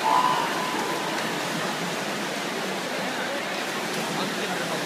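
Steady din of an indoor swimming race: spectators cheering and shouting over the splashing of swimmers, echoing through the pool hall. A louder single voice stands out at the very start.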